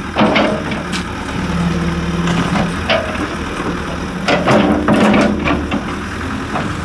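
Hitachi mini excavator's diesel engine running steadily while its bucket digs and levels a soil bank, with a few short knocks and scrapes.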